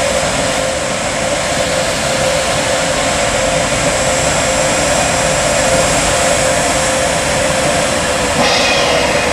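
Siemens Taurus electric locomotive (ÖBB 1016) starting away with a train, its traction converters holding one steady whining note of the musical scale they sing while accelerating, over the rumble of the locomotive. A brighter hiss joins near the end.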